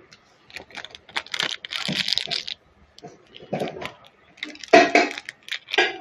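Metal spatula scraping and clinking against a wok while stirring a sauce, in several short irregular bursts.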